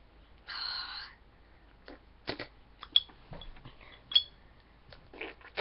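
Handling noises: a short rustle about half a second in, then scattered light clicks and knocks of things being moved about on a desk.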